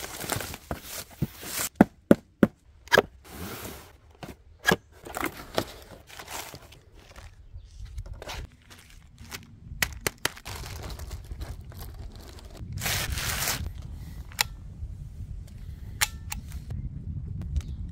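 Bubble wrap and plastic packaging being pulled off a cardboard box: crinkling with a quick run of sharp cracks in the first few seconds, then scattered plastic and cardboard rustling. Near the end come a few light clicks as the rifle is handled.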